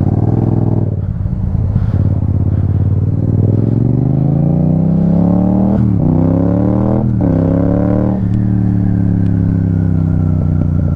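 Yamaha sport bike's engine pulling away under throttle, rising in pitch, with two quick upshifts about six and seven seconds in, then settling into a steady cruise.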